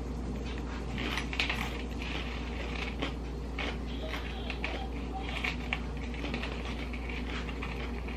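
Close-up chewing and crunching of chili cheese Fritos corn chips, a run of short, uneven crackles, over a steady low hum.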